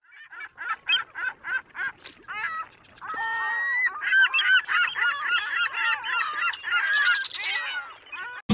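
A flock of geese honking: about seven quick honks in a row over the first two seconds, then many birds calling over one another.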